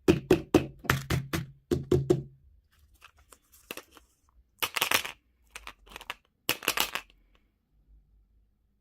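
Plastic packaging being handled: a quick run of clicks and knocks, then two short bursts of crinkling wrapper.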